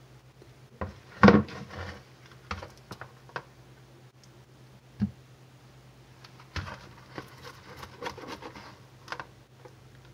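Spatula scraping and knocking against a plastic mixing bowl and small plastic tubs while soft soap is spread: irregular knocks and scrapes, the loudest about a second in.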